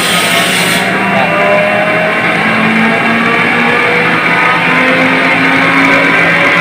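Background music led by guitar, with held notes that change pitch about once a second.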